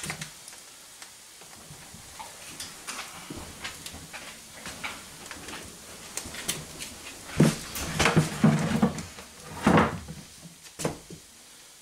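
Scattered knocks and clatter of a ceramic platter holding a roast duck being set down and moved about on a small wooden table, with a cluster of louder clunks in the second half.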